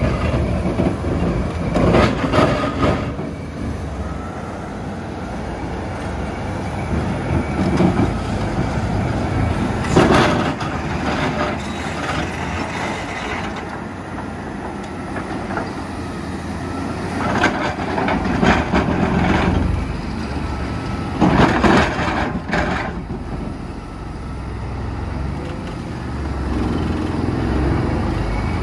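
Terex RH30F hydraulic mining excavator running steadily while its Xcentric XR80 vibrating ripper works into rock. Four times the ripper breaks into loud bursts of rapid, rattling impacts lasting one to two seconds each.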